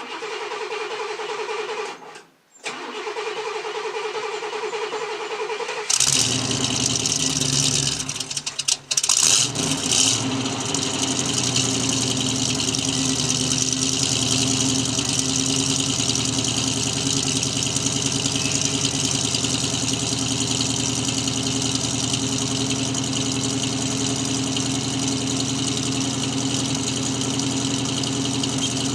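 Cold start of a 1968 Oldsmobile Toronado's 455 V8 with a Quadrajet carburetor. The starter cranks for about six seconds with a short break. The engine then catches, stumbles briefly and settles into a steady fast idle. The owner puts the high idle down to the carburetor, which has a missing gasket at the throttle blades.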